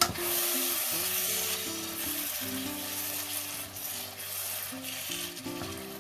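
Baby broccoli, tomatoes and tuna sizzling in a wok while a wooden spatula stirs and scrapes them, loudest in the first couple of seconds, under steady background music.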